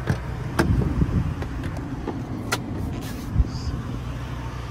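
Pickup truck cab door being opened by its chrome handle: sharp latch clicks and knocks, then a heavy low thud about three and a half seconds in, over a steady low rumble.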